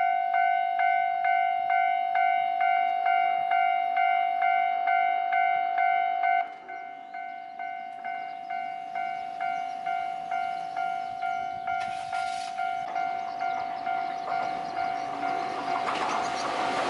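Japanese railway level-crossing warning bell ringing its "kan-kan" signal, about two strikes a second. It drops suddenly in level about a third of the way through and keeps ringing. Near the end the noise of the approaching train rises under it.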